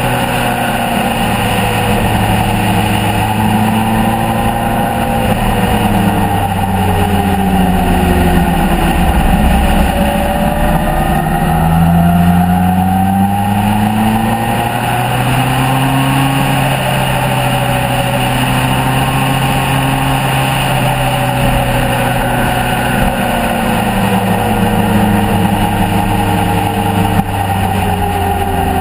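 Motorcycle engine heard on board while riding, its pitch rising and falling several times as the bike speeds up and slows, over steady wind rush.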